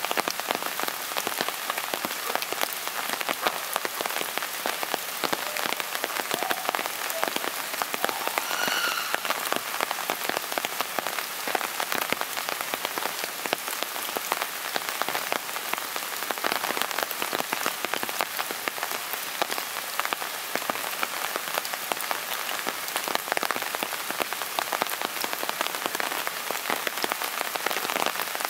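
Steady rain, a dense patter of drops throughout. A faint, brief high-pitched call rises over it about nine seconds in.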